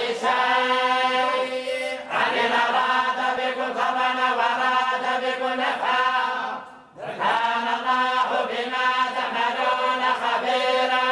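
A group of voices reciting the Qur'an in unison in the Moroccan collective style, drawing out long chanted phrases. There is a brief breath pause about seven seconds in.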